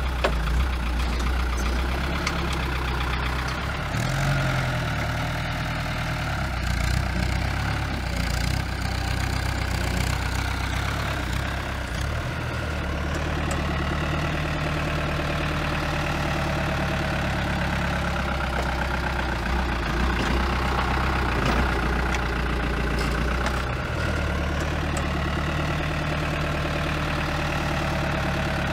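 Diesel engine of a truck with a forklift mast mounted on its front, running continuously while the forklift works. Its engine note shifts in pitch several times as the revs change.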